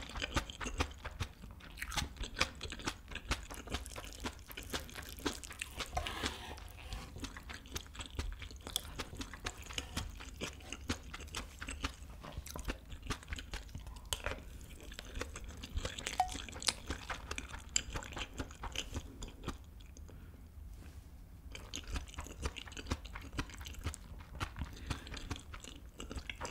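Close-miked mouth sounds of eating kimchi fried rice with fried egg and cheese: a steady stream of small wet chewing clicks and light crunches. It goes quieter for a few seconds about three-quarters of the way through, then the chewing picks up again.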